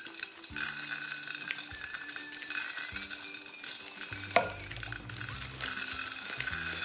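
Crunchy slime crackling and clicking as it is squeezed and handled, a dense run of small sharp clicks over background music with held notes; one sharper click a little after the middle.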